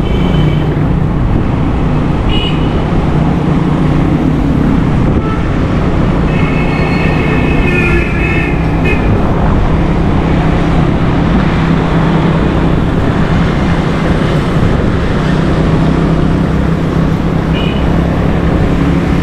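Steady engine and road noise of riding along a busy city street in traffic, with a few short vehicle horn toots. The longest toot comes from about six to nine seconds in.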